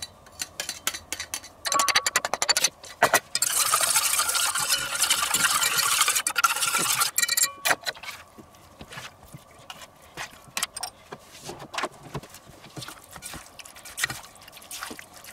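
Metal spoon clinking and scraping in a stainless steel bowl: a few taps, then brisk stirring of an olive-oil and spice marinade for about five seconds, then softer scattered taps as diced chicken is mixed in.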